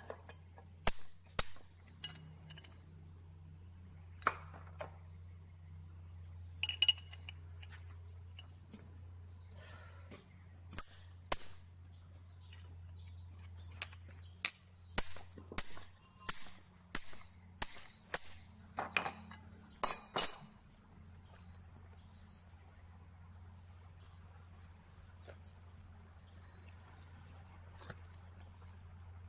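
Hammer tapping the top of a long steel rod set in a bore of a Komatsu PC200-7 excavator's hydraulic control valve block. About twenty sharp metallic taps, irregular at first and then about two a second, stop about two-thirds of the way through. Steady chirring of crickets underneath.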